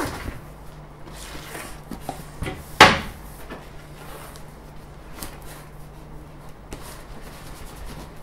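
A large cylindrical cardboard printer box being handled and tipped over on a table. It gives one loud knock about three seconds in, then lighter knocks and cardboard rubbing as it is turned.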